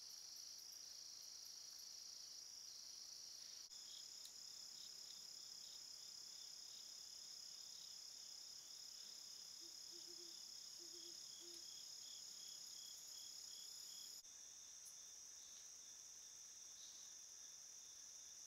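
Night insect chorus, crickets trilling steadily in a high band, shifting abruptly in pitch twice.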